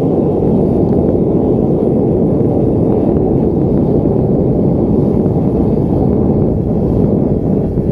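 Homemade propane forge burner, made from common pipe fittings, running at full regulator pressure into a firebrick forge: a loud, steady rush of gas and flame, unbroken throughout.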